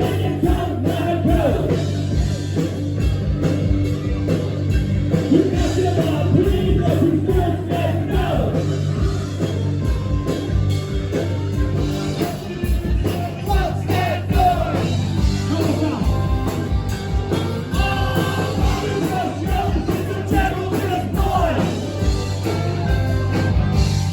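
Rock band playing loud and steady, with a driving drum beat, bass and a singer.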